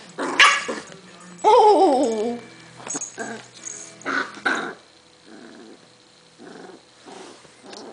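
Corgi growling in a string of short bursts while its belly is tickled, with a longer wavering, whiny growl about a second and a half in and softer grumbles near the end; the owner guesses the tickling is uncomfortable for it.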